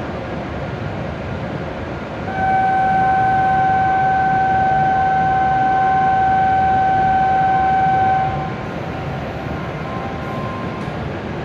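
A steady electronic tone of one pitch sounds for about six seconds, starting about two seconds in: a platform departure signal for a Shinkansen about to leave. Under it runs the steady hum of the stopped train and the station.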